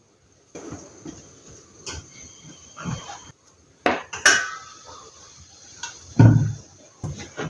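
Kitchen handling noises: knocks, clicks and a metallic clink as a paper instant-noodle cup and a stainless-steel kettle are handled on a table, with one heavier low thump a little after six seconds.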